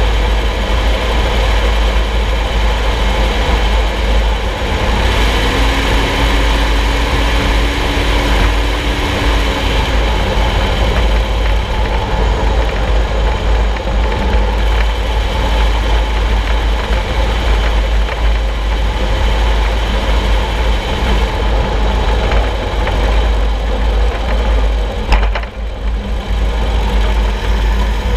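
Steady road and drivetrain noise from beneath a moving vehicle's front solid axle, with a heavy low rumble; a faint steady hum comes in for a few seconds about five seconds in.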